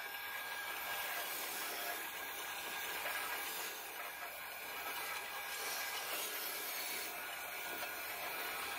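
A wire wheel on a bench grinder brushing rust off a steel sword blade held against it: a steady scraping hiss over a constant tone from the motor.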